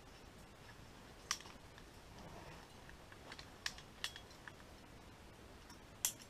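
Climbing hardware, carabiners and quickdraws, giving a handful of faint, sharp metallic clinks spread over several seconds as the climber moves and handles the rope, the loudest near the end.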